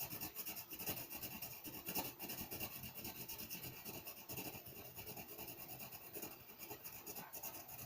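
Rubber eraser scrubbing back and forth on drawing paper in quick, faint strokes, about four a second.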